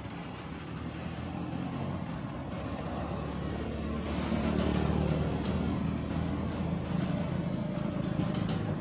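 Engine of a motor vehicle running, a steady low drone that grows louder over the first few seconds and then holds.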